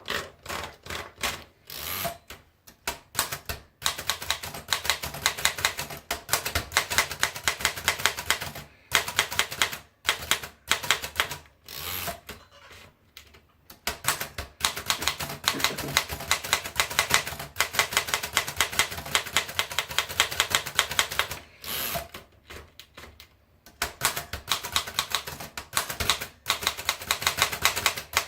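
Remington Portable 5 manual typewriter being typed on: fast runs of sharp key strikes lasting several seconds, broken by short pauses.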